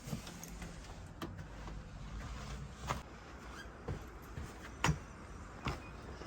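A few separate light clicks and knocks, about five of them spread irregularly, over a faint low rumble.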